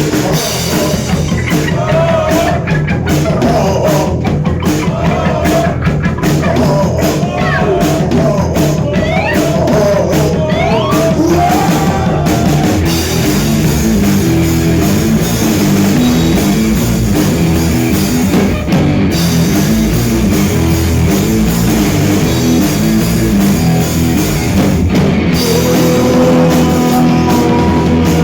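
Loud live rock music from a band with drums: a bending, wavering lead melody for about the first twelve seconds gives way to a steady repeating pattern.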